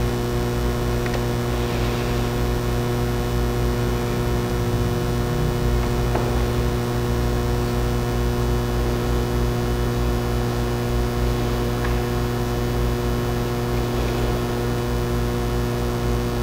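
Steady electrical mains hum: a low, unchanging drone with a stack of evenly spaced higher overtones, with a few faint clicks.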